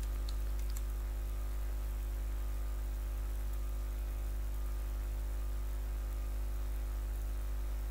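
Steady electrical mains hum and buzz with a faint hiss, picked up by the recording microphone. Two faint clicks come in the first second.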